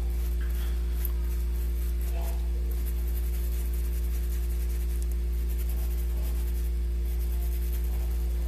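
Steady low hum with a few fainter steady tones above it, unchanging throughout, with faint scattered light ticks over it.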